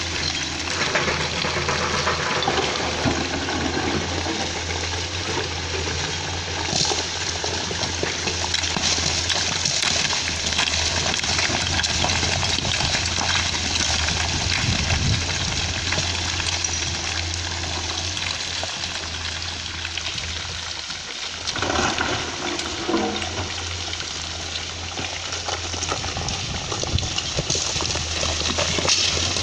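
Excavator diesel engine running with a steady low drone under a continuous rushing noise, dipping briefly and swelling again a little past the middle.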